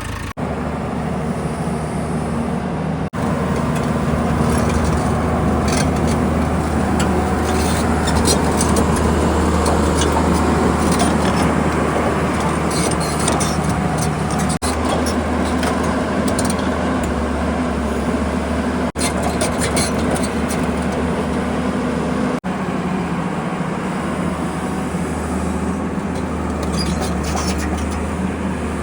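Diesel engine of heavy earthmoving machinery running steadily at a low, even pitch, with a few abrupt breaks where the engine note shifts slightly.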